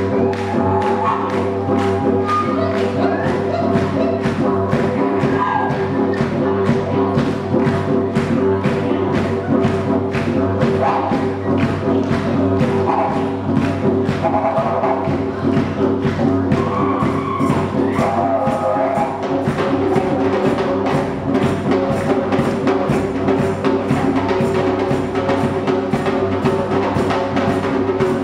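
Live didgeridoo and hand-drum ensemble: a steady didgeridoo drone under fast, dense drumming on djembes and congas. Higher wavering notes come and go over the first two-thirds.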